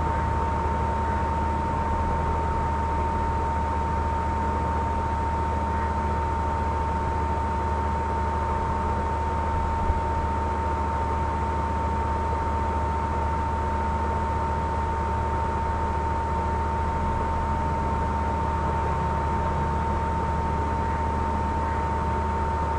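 Steady hiss with a low hum and a constant high-pitched whine, like electrical noise on an open recording line, with one faint click about ten seconds in.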